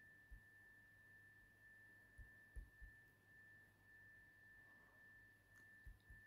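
Near silence: a faint, steady, high-pitched electronic whine, with a few soft low thumps just after the start, around two to three seconds in, and near the end.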